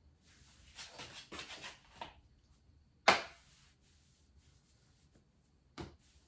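Rustling and handling noises in a small room, with one sharp knock about three seconds in and a couple of softer thumps near the end.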